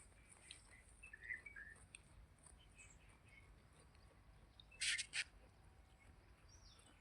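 Faint, scattered bird chirps over a quiet background, with two short sharp noises in quick succession about five seconds in.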